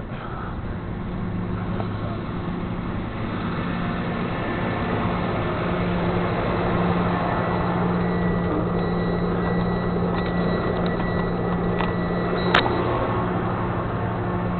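Flatbed tow truck's engine running steadily, slowly getting louder over the first several seconds, with a single sharp click about three-quarters of the way through.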